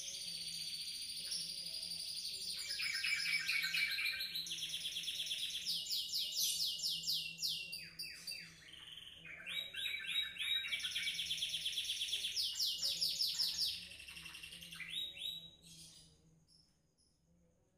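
Canary singing in long rolling trills of rapidly repeated notes, switching from one trill to the next, fading out near the end.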